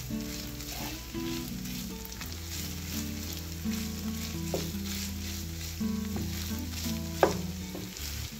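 Ground beef and onions sizzling in a nonstick frying pan, stirred with a wooden spatula that scrapes and taps against the pan. A sharp tap about seven seconds in is the loudest sound.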